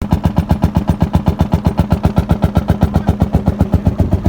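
Engine of a ploughing machine running steadily, with an even, regular beat of about nine pulses a second over a low hum.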